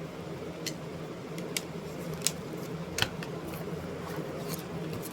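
A steady low hum with several short, sharp clicks scattered through it.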